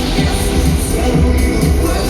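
Pop music with a steady dance beat and heavy bass.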